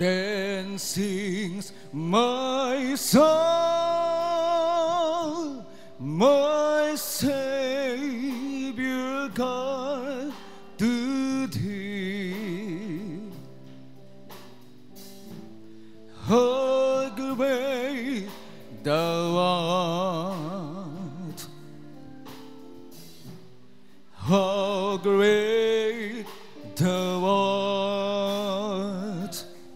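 A slow song: a solo singer holding long notes with wide vibrato over sustained instrumental chords, sung in phrases with short pauses between them where only the chords continue.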